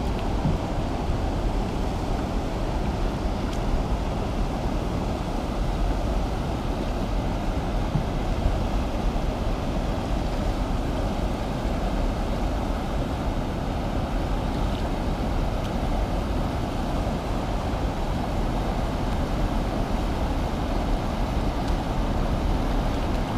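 Steady rumbling wind noise buffeting the microphone, mixed with a rush of water from the river and weir.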